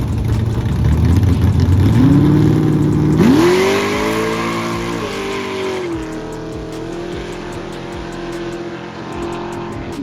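Cadillac CTS-V's LS2 V8 revving up hard, climbing steeply twice, about two and three seconds in, then held at high revs and easing slightly.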